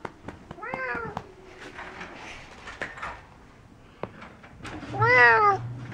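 A domestic cat meowing twice: a short meow about a second in and a louder, longer one about five seconds in, with a few light knocks between.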